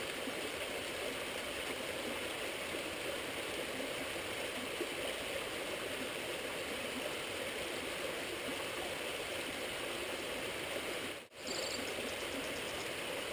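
A small creek flowing: a steady, even rush of water, broken by a brief gap about eleven seconds in.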